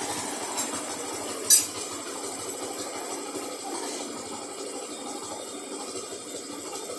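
A steady running noise from the motorcycle, and about a second and a half in a single sharp metallic clink, like a spanner being picked up.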